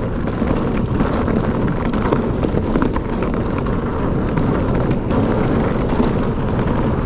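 Wind buffeting the microphone over the rumble of a mountain bike's tyres rolling fast over a rough, rocky dirt trail, with small clicks and rattles from the bike.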